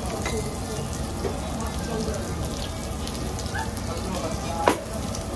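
Beef sizzling on a Korean barbecue grill plate, a steady crackle, with one sharp click near the end.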